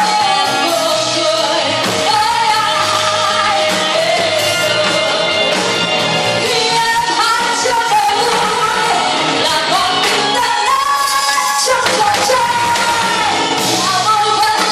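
Live pop song: a woman singing lead over a band of electric bass, keyboard, acoustic guitar and drums, without a break.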